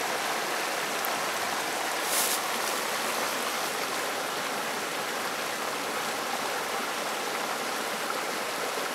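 Small creek water running steadily, an even rushing babble, with a brief louder swish about two seconds in.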